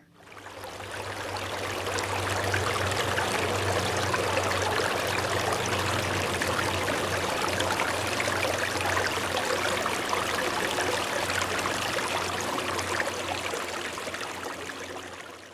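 Running stream: water rushing and trickling steadily. It fades in over the first couple of seconds and fades out at the end.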